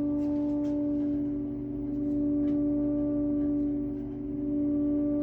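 Triangle Tube Prestige boiler giving off a steady pitched hum with overtones, its loudness swelling and dipping slowly about every two and a half seconds. It is an annoying noise of unknown cause that has appeared since a new valve was installed.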